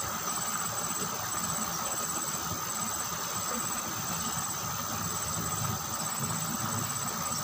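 Insects trilling steadily in a high, pulsing chorus over the low, even rush of water running down a small drainage ditch.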